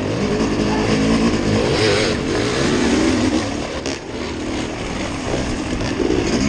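A vehicle engine running, its pitch rising and falling unevenly, under a steady rushing noise.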